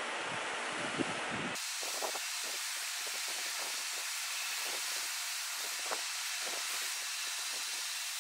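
Small wood lathe running with hand-held sandpaper pressed against a spinning turned wooden tool handle: a steady hiss that turns brighter about a second and a half in, with a few faint clicks.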